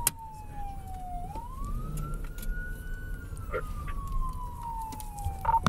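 Police car siren on a slow wail: the pitch falls, climbs back up, then slides down again over a few seconds. It is heard from inside the cruiser's cab, with engine and road rumble underneath.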